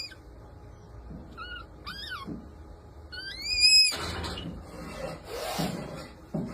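Red panda calling: two short high squeaks, then a longer, louder squeal that rises and falls, followed by breathy hissing noise.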